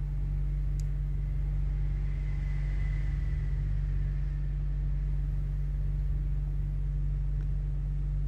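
A steady low hum, like a motor or fan running, with one faint click about a second in.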